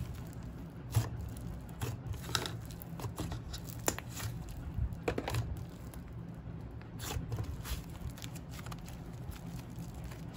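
Hands squishing and pulling a thick scoop slime made with a clay slime base, giving irregular soft pops, crackles and sticky tearing sounds, with a few sharper clicks about a second in and around four and five seconds.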